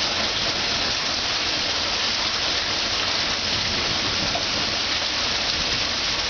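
Heavy monsoon downpour falling steadily on a street and pavement, an even, unbroken rush of rain.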